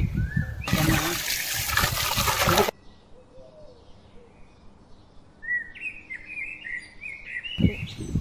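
Water sloshing and splashing in a metal pot as a whole chicken is washed by hand in turmeric water, loud for about two seconds and then cutting off suddenly. Small birds chirp in the quieter stretch that follows.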